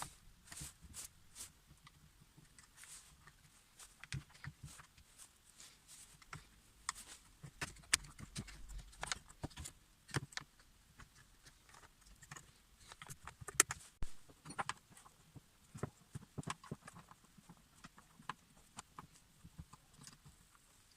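Irregular light clicks, taps and knocks, scattered unevenly with a few louder ones, as of hand work on small parts and tools.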